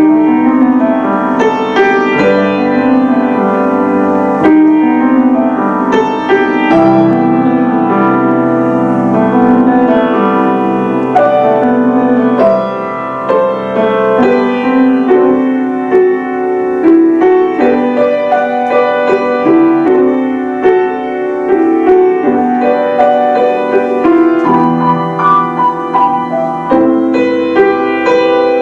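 Piano duet, two players at one piano, playing classical music in a flowing, continuous passage.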